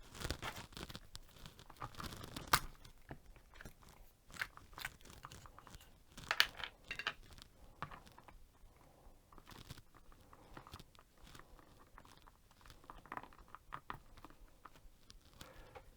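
Multimeter test probes and the plug's wires being handled: scattered small clicks, taps and scrapes, with no continuity beep.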